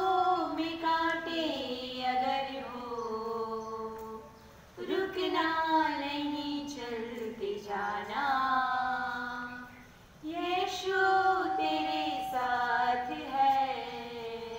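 Female voices singing a prayer unaccompanied, in three long, drawn-out phrases with short pauses between them.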